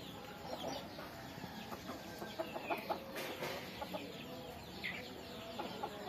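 Roosters clucking softly in short scattered notes, with a couple of brief higher calls that slide down in pitch.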